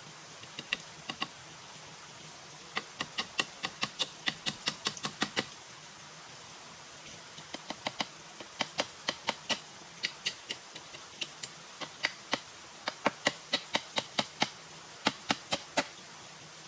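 Several runs of quick, sharp knocks, about five a second, with short pauses between runs, over a steady background hiss.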